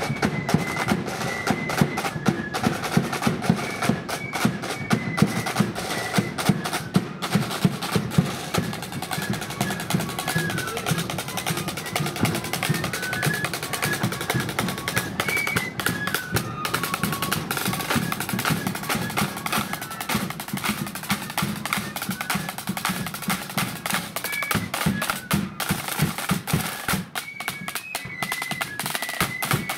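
A marching flute band playing a tune: flutes carry the melody over rapid snare drum rolls and strikes, with a bass drum underneath.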